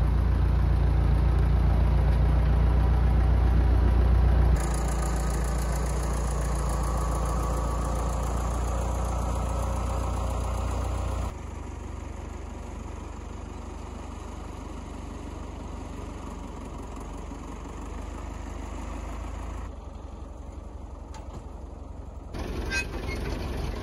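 Tractor engine running steadily as the tractor drives. It is loud at first and drops in level in steps about four and a half and eleven seconds in.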